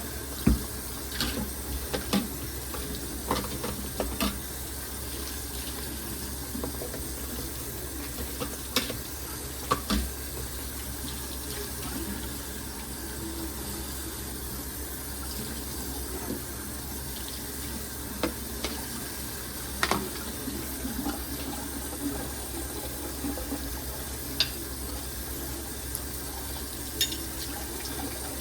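Water running steadily from a tap into a sink while dishes are washed, with occasional sharp clinks and knocks of dishes against each other or the sink.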